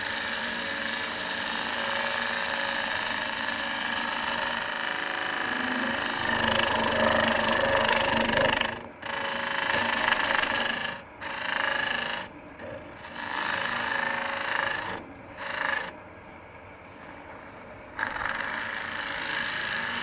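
A Robert Sorby ring tool cutting into the spinning end grain of a bowl blank on a wood lathe, a steady shearing, rasping cut over the lathe's hum. From about nine seconds in the tool comes off the wood several times, leaving mostly the lathe running for a moment; the longest break is near the end, before the cut resumes.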